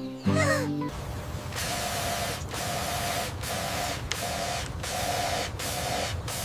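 A machine running in a regular cycle: a steady hiss with a hum that briefly cuts out about once every 0.8 seconds. It starts about a second in, just after a short musical tone.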